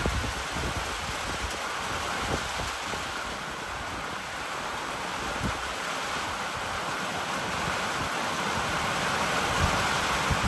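Steady rain on the roof overhead: an even hiss with a few soft low thumps.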